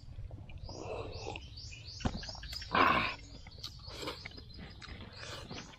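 Small birds chirping over and over, high short chirps several a second, with quiet eating and drinking sounds from people at a table. A short, louder rush of noise comes just before three seconds in.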